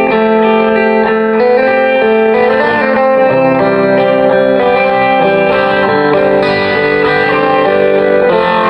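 Jackson Soloist electric guitar played with a clean tone through a Mesa Boogie Mark IIC+ tube amp, recorded on a cell phone. Ringing chords and single notes change every second or so.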